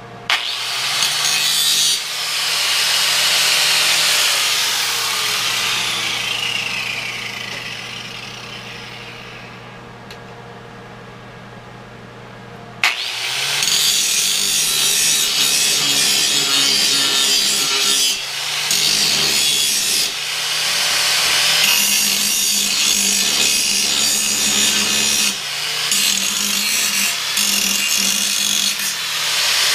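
Angle grinder starts suddenly, then winds down with a falling whine that fades over several seconds. About thirteen seconds in it starts again and grinds steel for the rest of the time, the grinding broken by a few brief dips.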